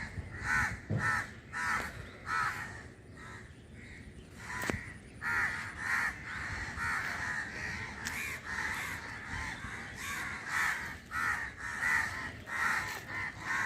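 Crows cawing over and over, many short calls coming in clusters, with a single sharp click about four and a half seconds in.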